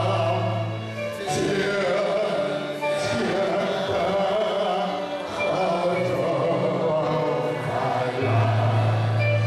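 A congregation singing a Chinese-language hymn together, over an instrumental accompaniment whose low bass note is held at the start and again near the end.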